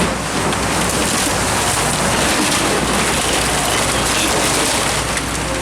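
Building demolition: a continuous crackling crunch of debris and rubble breaking and falling, with a heavy machine's engine running low underneath.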